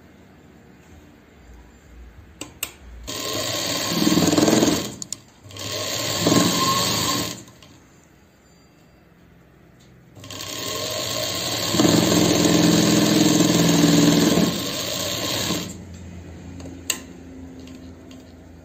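Sewing machine stitching fabric in three runs: two short bursts of stitching about three and five and a half seconds in, then a longer steady run of about five seconds starting about ten seconds in.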